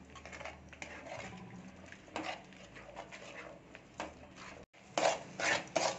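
Metal spatula scraping and knocking against a metal pan while stir-frying scrambled egg with onion-tomato masala. A few scattered strokes at first, then quicker, louder scrapes in the last second or so.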